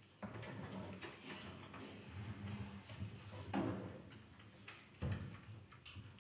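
Quiet handling noise of musicians getting ready on stage: soft knocks, shuffles and rustles, with louder knocks about three and a half and five seconds in.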